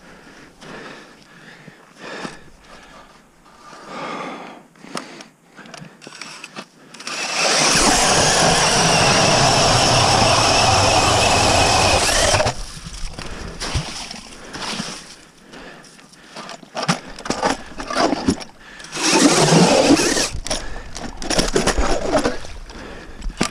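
Cordless drill driving an ice auger, running steadily for about five seconds as it bores through lake ice, then starting again in shorter, louder spurts near the end. Light crunching of footsteps in snow before the first run.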